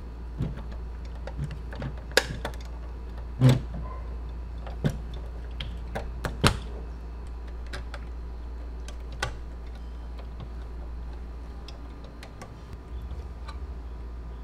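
Irregular small clicks and taps of plastic and metal model parts being handled and pressed into place on a diecast Scania model truck cab. Two knocks, about 3.5 and 6.5 seconds in, are the loudest, over a steady low hum.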